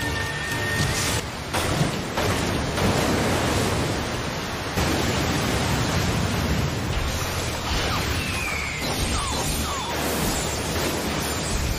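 Anime battle sound effects: a dense, unbroken rushing roar of chakra and destruction, with a few sharp hits in the first couple of seconds.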